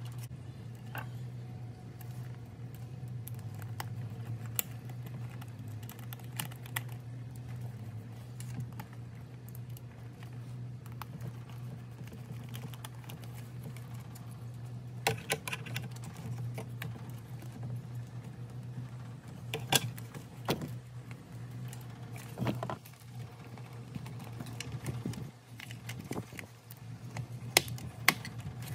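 Scattered clicks, taps and small rattles of plastic parts and screws being handled and screwed back into a Gemmy singing fish's plastic housing by hand, over a steady low hum.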